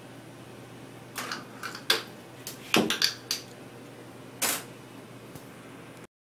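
A run of sharp metallic clicks and clinks, about nine in three and a half seconds, as metal optical posts and mounts are handled on a steel optical table. A steady low hum from the lab equipment runs underneath.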